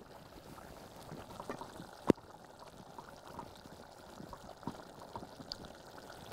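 Chicken pieces sizzling and bubbling faintly in a pot while being stirred with a wooden spoon, with small crackles throughout and one sharp knock about two seconds in.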